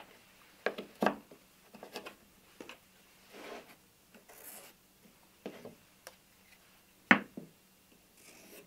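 Wooden MDF mold pieces knocked and slid against each other and the workbench, with a pencil scratching marks onto the MDF. Scattered light knocks and clicks, with a sharper knock about seven seconds in as the loudest, and short scratchy bursts of pencil writing around the middle.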